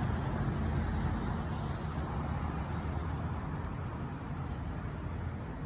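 Steady hum of road traffic, a low rumble with a light hiss over it, easing slightly toward the end.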